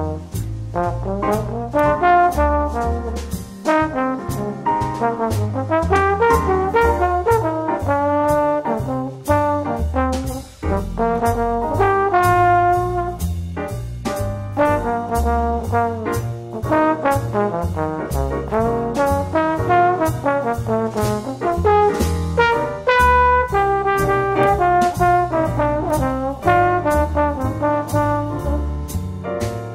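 Background music: a melodic tune over a low bass line with a steady beat.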